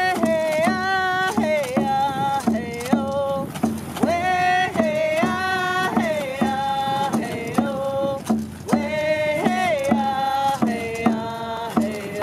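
Ojibwe hand-drum song: voices, mostly women's, sing together in long gliding phrases over a steady drumbeat of about two strokes a second on frame hand drums.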